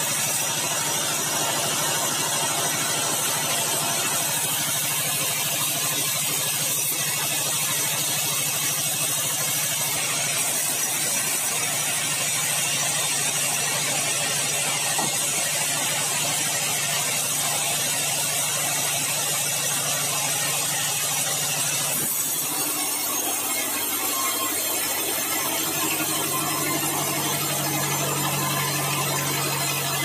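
A large vertical band sawmill running steadily, its drive and blade giving an even mechanical hum and whir; the hum changes in pitch about two-thirds of the way through.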